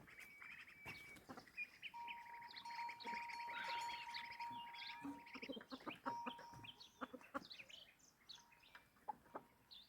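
Small birds chirping and calling in many short notes and trills, with a thin steady whistling tone for about three seconds, starting about two seconds in.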